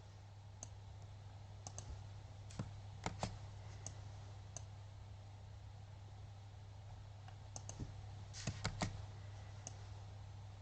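Scattered computer mouse and keyboard clicks, some single and some in quick little clusters, over a steady low hum.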